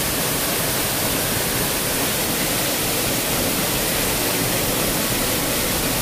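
Very loud, steady rush of a waterfall pouring down a rock face into its pool, the flow heavy with rain.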